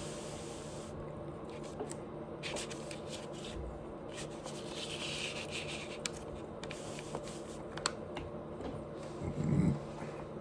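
A person chewing food, with scattered small wet clicks and smacks of the mouth over a faint steady hum, and a short low throat sound about nine seconds in.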